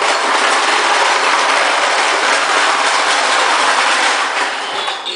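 Plastic push-along toy lawn mower rolling over a tile floor, its wheels and the balls in its dome making a loud, continuous clatter that eases slightly near the end.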